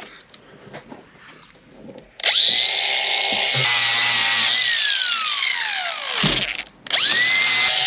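Angle grinder switched on about two seconds in, rising quickly to a steady high whine. It is let off and winds down with a long falling pitch, then switched on again near the end. A few faint knocks come before the first start.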